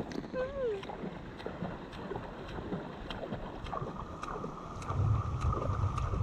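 River water lapping and splashing lightly around inflatable tubes drifting downstream, with small irregular ticks. About five seconds in, wind begins to rumble on the microphone.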